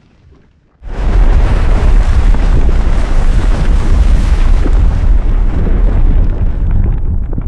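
Volcanic eruption sound effect: after a moment of quiet, a sudden loud blast about a second in becomes a sustained deep, noisy rumble, strongest in the bass, easing slightly near the end.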